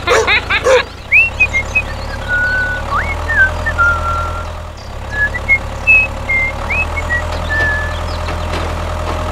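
A mini tractor's small engine running steadily with a low drone that shifts a little about halfway through. Short high chirps are heard over it.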